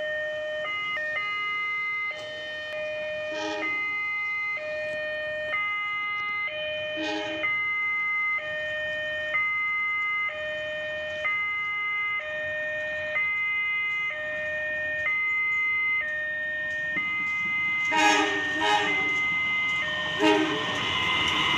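Electronic two-tone warning alarm, switching back and forth between a low and a higher note about once a second in a steady, unchanging cycle. A few short louder sounds of another kind come in near the end.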